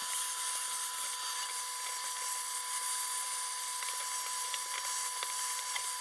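Henry HVR200 vacuum cleaner running with a brush attachment on its hose: a steady high whine over a rushing hiss of suction, with a few faint ticks as the brush moves over a ridged plastic lid.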